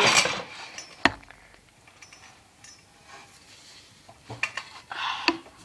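Handling noise as a camera is set down: a loud rustle and a sharp knock about a second in, then light metallic clinks and clatter from the fan hardware being worked.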